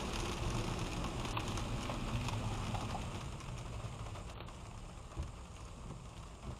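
Car road noise heard from inside the cabin: tyres hissing on a wet road with rain, fading steadily as the car slows almost to a stop, with a single click a little over five seconds in.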